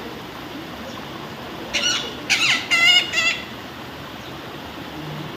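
A parrot gives a quick run of four or five short, shrill squawks about two seconds in, over a steady rush of running water.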